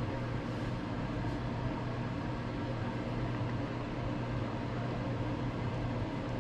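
A steady low hum over an even hiss, as from a fan or motor running, unchanging throughout.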